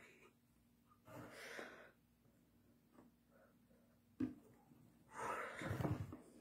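A man's breathing close to the microphone, two longer breaths, with a single sharp tap a little after four seconds in.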